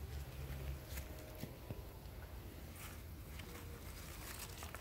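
Faint rustling and a few soft scattered clicks from gloved hands handling strawberry plants and potting soil, over a low steady rumble.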